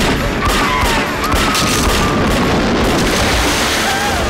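Movie battle sound effects: burning flames and gunfire with booms over a dense, steady rush of noise.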